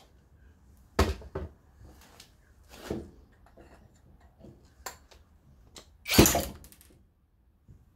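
Stripped-down chainsaw body and parts being handled on a workbench: a few separate knocks and clunks, a short scrape about three seconds in, and the loudest clatter about six seconds in.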